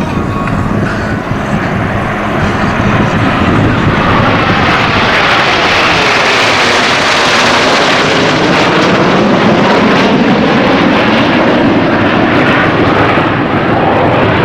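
Snowbirds' Canadair CT-114 Tutor jets flying past. Their jet noise swells over the first few seconds and stays loud, with a sweeping, hollow tone as they pass overhead.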